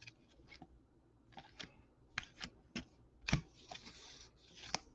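Baseball trading cards being flipped through by hand: faint, irregular flicks and slides of card stock against card stock, coming more often in the second half.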